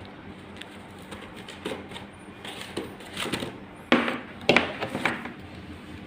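Irregular clicks and knocks from handling an APC UPS unit and its power cables, with two sharper knocks about four and four and a half seconds in.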